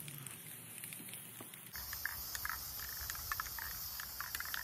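Aerosol spray paint can hissing, starting about a second and a half in, with many light ticks and a low rumble underneath.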